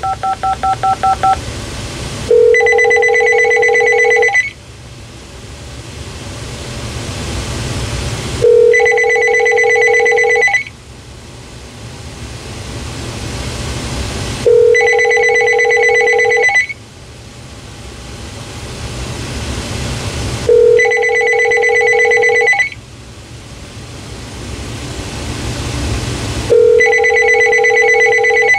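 Uniden DXAI388-2 900 MHz cordless phone ringing with an incoming call: an electronic warbling ring in two-second bursts every six seconds, five times, after a quick run of short beeps at the start. The answering system, set to announce-only, never picks up.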